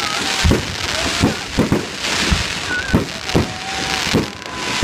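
Aerial fireworks shells bursting overhead in a salute display: a rapid series of bangs, about eight in under five seconds, with crackling hiss between them.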